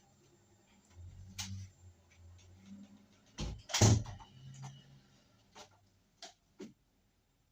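Knocks and clunks of something being handled, with a low rumble about a second in and one loud thud near the middle, followed by a few lighter clicks.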